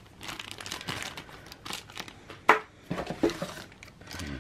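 Thin plastic packaging bags crinkling and rustling as they are handled, with a sharp tap about two and a half seconds in.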